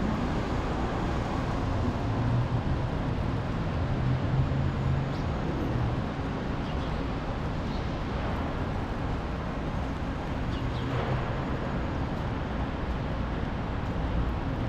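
City street traffic on a wet road: a steady hiss of tyres and traffic, with a vehicle engine humming louder between about two and six seconds in.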